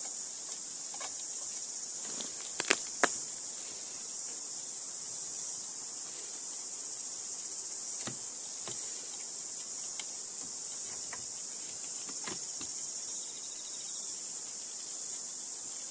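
A chorus of cicadas buzzing steadily in a high band, with a few small clicks of a nut and spring being handled on a threaded rod, two sharper ones about three seconds in.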